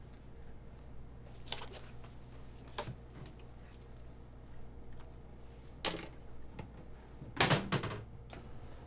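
Wooden kitchen cupboard being opened and shut while a plastic food container is put inside: a few light knocks and clicks, the loudest near the end.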